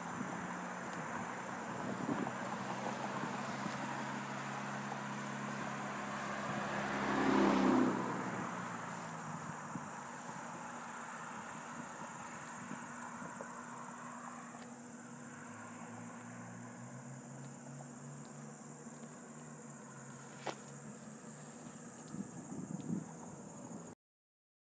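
Steady high-pitched insect chorus in a grassy field, with a car driving past, loudest about seven to eight seconds in. All sound stops about a second before the end.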